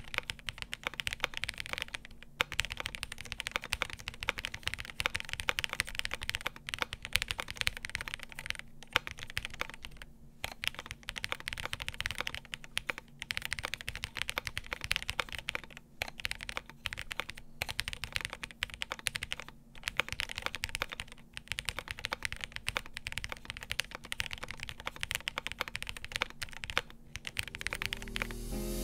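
Continuous fast typing on a Cannon Keys Brutal V2 1800 mechanical keyboard built with Chocolate Toffee switches on a carbon fiber half plate: a rapid, steady clatter of keystrokes broken by a few brief pauses.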